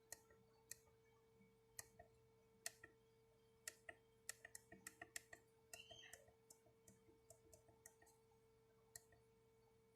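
Sharp clicks from small push-buttons being pressed, irregularly spaced, with a quick run of them in the middle, over a faint steady electrical hum.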